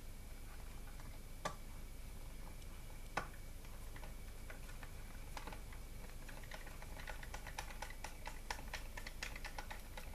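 Small plastic and metal clicks from a screwdriver and fingers working on an opened laptop chassis: two sharp clicks, then a quick run of light ticks and taps near the end.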